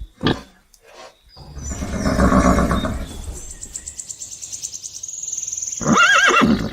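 A quick run of different animal sounds: a short grunt, a noisy stretch, a high buzzing trill, and near the end a wavering pitched call.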